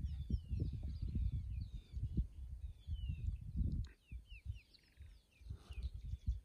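Birds chirping, many short downward-sliding notes repeated, over a louder low uneven rumbling that fades away for about a second a little past the middle. A single sharp click comes shortly before the rumble fades.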